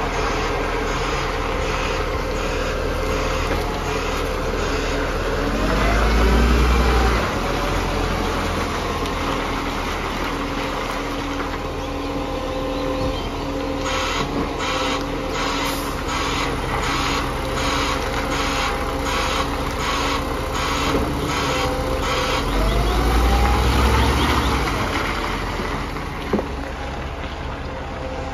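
Side-loader garbage truck's diesel engine running while its hydraulic arm lifts and empties a wheelie bin, the engine revving up twice, about six seconds in and again near the end. Through the middle a high-pitched pulsing sounds about twice a second, and a single sharp knock comes near the end.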